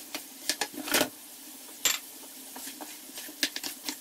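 Wooden spoon stirring onions and liver in a frying pan, knocking and clicking against the pan several times, loudest about a second in and just before two seconds, over a faint steady frying hiss.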